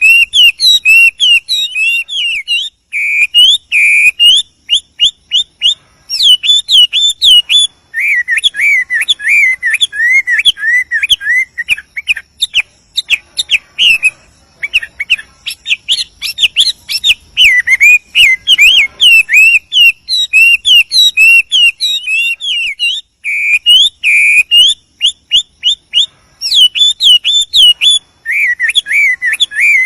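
Chinese hwamei (wambi) singing a loud, varied whistled song: phrase after phrase of rapidly repeated swooping notes, each phrase changing to a new motif every few seconds, with only brief pauses.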